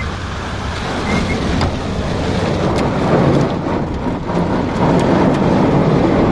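Heavy rain and hailstones hitting a car's roof and windows, heard from inside the cabin: a dense steady hiss with a few sharp clicks of single stones striking.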